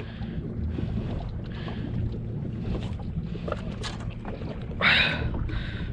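Steady low rumble of a small fishing boat on calm sea, with wind on the microphone. A short splash-like hiss comes about five seconds in, while a long-handled landing net is worked over the side.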